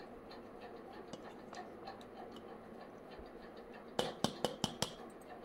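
Wooden spatula stirring tamarind rice in a stainless steel bowl: faint scraping and light ticks, then about six sharp clicks in quick succession about four seconds in as the spatula knocks against the steel bowl.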